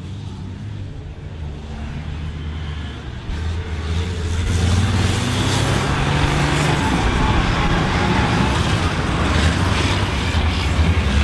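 Diesel engines of several racing combine harvesters running hard under full throttle, pouring out black smoke, as they come up and pass close by. They get louder from about four seconds in and stay loud.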